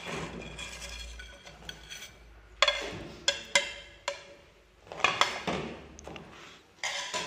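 Metal tongs and ceramic plates clinking, a handful of irregular knocks that each ring briefly, with a soft rustle of fried noodles being slid across a plate early on.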